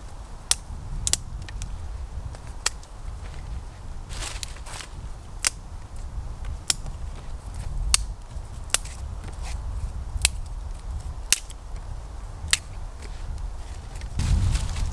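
A series of sharp, very short cracks, irregularly spaced at roughly one a second, over a steady low rumble of wind buffeting the microphone, which grows stronger near the end.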